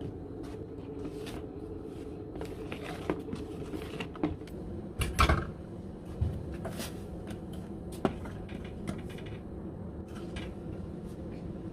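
A spoon knocking and scraping against a saucepan as the spiced tea mixture is stirred: scattered sharp clinks, the loudest knock about five seconds in, over a steady low hum.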